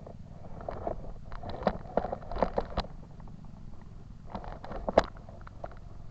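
A steady low rumble with two bursts of close clicking and rustling, the first about a second in and the second after the middle, with one sharp click standing out near the end.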